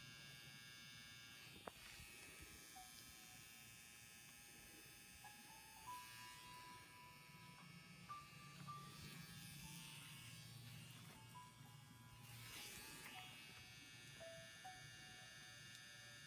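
Permanent makeup pen machine running with a faint, steady high-pitched buzz while shading an eyebrow with pigment. Quiet background music with a simple melody plays under it.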